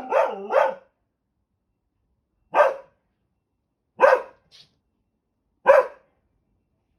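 Labradoodle giving territorial warning barks: a quick double bark, then three single loud barks spaced about a second and a half apart.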